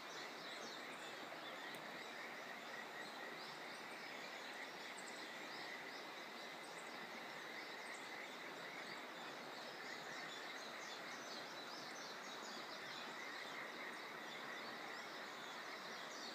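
Kajika frogs (Buergeria buergeri) calling in a steady chorus, mixed with many short bird chirps, over a faint steady hiss.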